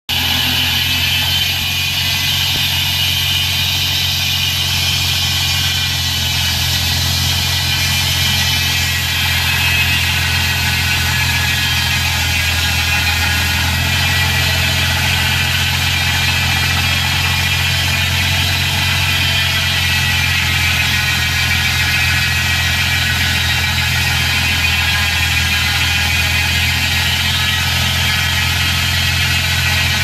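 A 36-inch circular sawmill running steadily, with a constant low hum from its drive and a high whir from the spinning blade.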